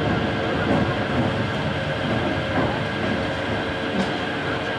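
Zierer Force Two steel roller coaster train pulling out of the station, its wheels rumbling along the steel track over a steady mechanical hum.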